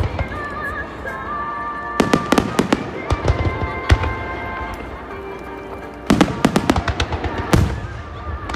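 Aerial fireworks bursting in two volleys of rapid, sharp bangs, one about two seconds in and one about six seconds in, with music playing underneath.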